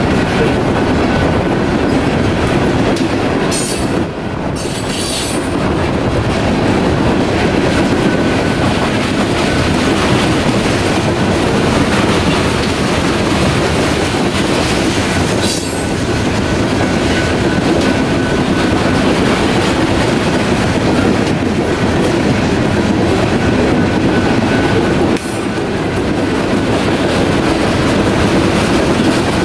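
Loaded coal train's hopper cars rolling past at a grade crossing: a steady, loud rumble with the wheels clacking over rail joints.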